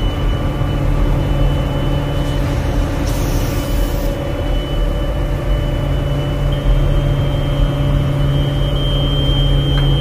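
Loud, steady hum of a ship's machinery in an engine-side compartment, with several constant low tones and a thin high whine above them.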